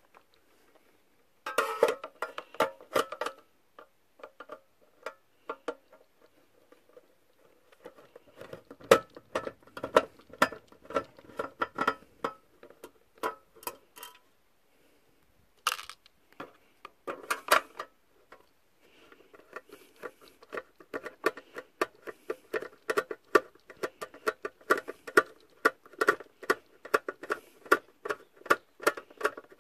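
Screwdriver turning screws out of a bread maker's metal chassis: runs of quick, sharp clicking ticks several seconds long, with short pauses between runs.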